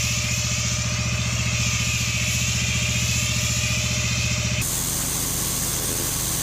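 Engine-driven pressure washer running steadily, with a loud hiss from the water jet. The sound changes abruptly about four and a half seconds in.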